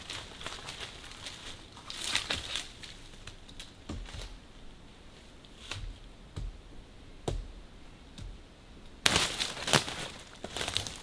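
Dry fallen leaves rustling and crunching, with scattered sharp cracks of dead twigs and wood through the first part. About nine seconds in, a louder, continuous rustling scrape as a long dead sapling pole is dragged through the leaf litter.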